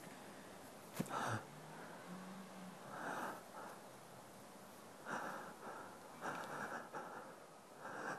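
A person breathing heavily in uneven breaths a second or two apart, with a sharp click about a second in.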